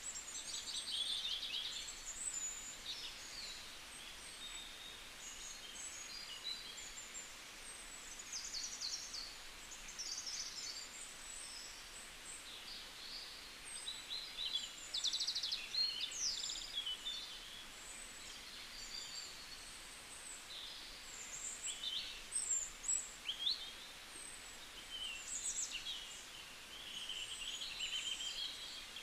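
Many small birds chirping and trilling, with short high calls following one another irregularly over a faint steady hiss.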